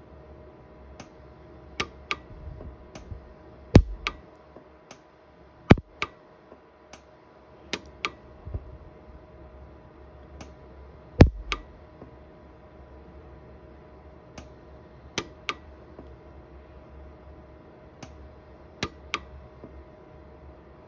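Pulse arc micro TIG welder (Orion 150s) firing single weld pulses on a silver ring, each one a short sharp snap. There are about twenty, irregularly spaced, with three louder ones. The pulses are filling porosity pits in the silver with added metal.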